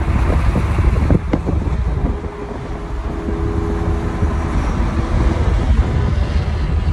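Wind buffeting the microphone and steady road and engine roar from a car at freeway speed, with other cars running alongside.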